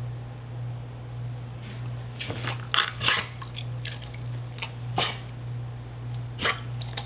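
A Labrador retriever's short, sharp mouth and throat noises, about ten in quick irregular succession starting about two seconds in, the loudest around three and five seconds in, from a dog her owner calls gassy. A steady low hum runs underneath.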